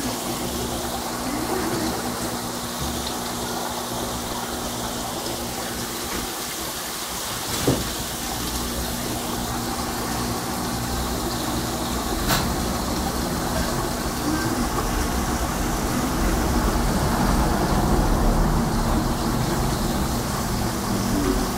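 Aquarium filter and aeration running: a steady rush of moving water and bubbles with a low hum under it. Two short sharp clicks, about eight and twelve seconds in.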